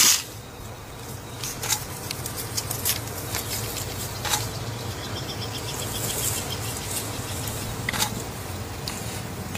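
Crested porcupine's raised quills rattling and clicking in short, sharp clatters, the strongest about four times, over a low steady hum.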